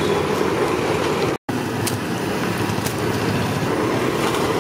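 Steady street traffic noise, a continuous hum of passing vehicles, broken once by a brief dropout about a second and a half in.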